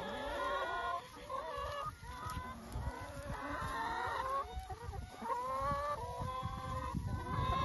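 Brown free-range laying hens clucking and calling, several voices overlapping, over a low rumble.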